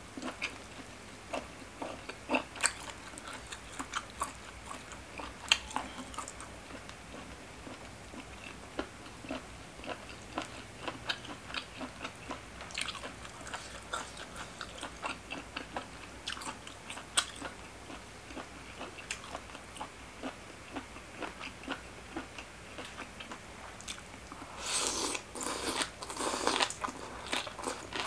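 Close-up chewing and crunching of shredded green papaya salad and raw greens, with many small crisp crunches and wet mouth sounds. A louder burst of crunching comes near the end.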